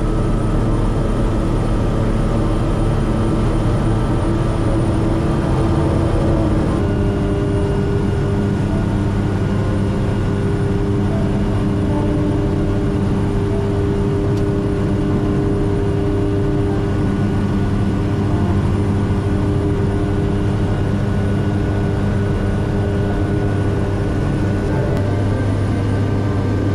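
Steady drone of a ski plane's propeller engine, its note shifting slightly about seven seconds in.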